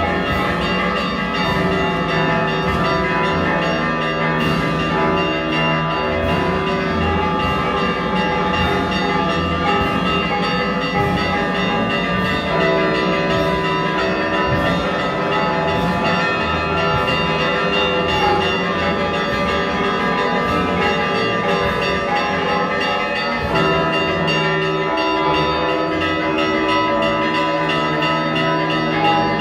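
Church bells ringing continuously in a steady, repeated pattern of strokes, the tones of several bells overlapping.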